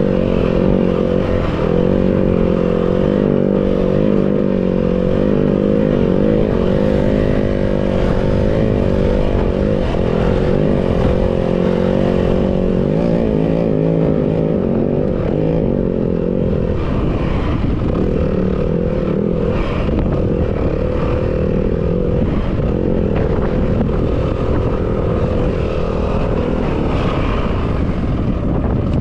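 Yamaha WR250F dirt bike's four-stroke single-cylinder engine running steadily while being ridden, its pitch rising and falling with the throttle.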